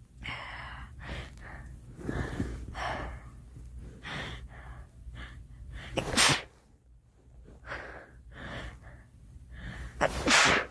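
A girl sneezing twice, about six seconds in and again near the end, each sneeze preceded by a run of short gasping in-breaths as it builds.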